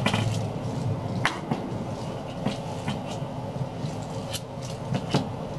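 Steady low rumble of a sleeper-train passenger car running, heard from inside the cabin, with a few sharp clicks and light knocks, one just after a second in and two close together near the end.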